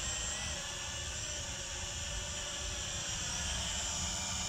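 Small quadcopter drone (SNAPTAIN SP500) flying, its propeller motors giving a steady, many-toned high whine over a low, uneven rumble.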